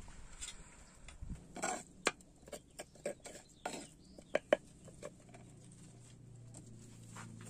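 Metal spoon stirring chilli paste in a mortar, clicking and scraping against its sides in a run of irregular taps; the sharpest tap comes about four and a half seconds in.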